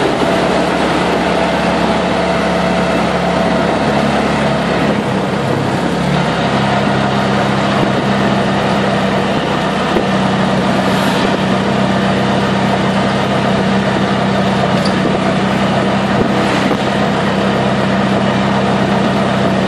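The small engine of a CNG three-wheeled auto-rickshaw running steadily while under way, heard from inside the open passenger cabin along with road and wind noise. Its note shifts about five seconds in, then settles again.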